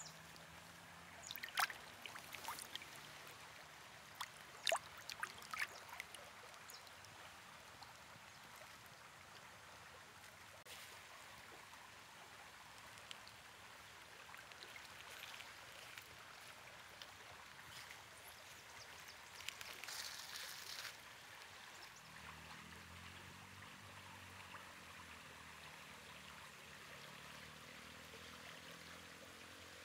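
River water flowing and lapping gently over a shallow pebble shore. There are several short, sharp sounds in the first few seconds and a brief louder rush of noise about twenty seconds in. A faint low hum comes in over the last several seconds.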